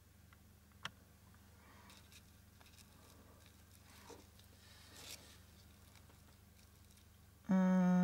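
Soft rustling of satin ribbon and fabric being handled on a foam ornament ball, with a small click about a second in. Near the end a short hummed "hmm" from a person starts, which is the loudest sound.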